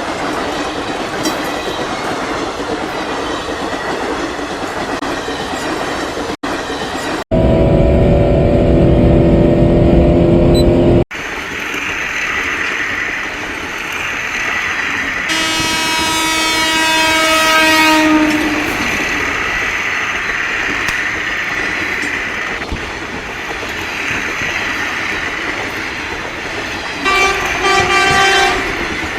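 Train running with steady rumble and wheel clatter, sounding its horn three times. The first horn, from about 7 to 11 s, is loud and starts and stops abruptly. The second lasts about three seconds, dipping in pitch at its end. The third, near the end, is short.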